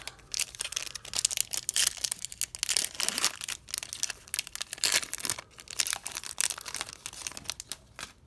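Silver foil wrapper of a 2021 Bowman baseball card pack being torn open and crinkled by hand as the cards are pulled out. It makes a dense crackling that thins out near the end.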